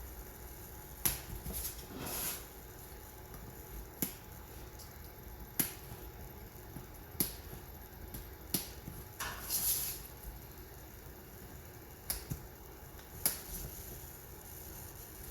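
Laser-cut balsa bulkhead pieces being cut free of their tabs in the kit sheet: sharp snaps every second or two, with a softer scrape now and then.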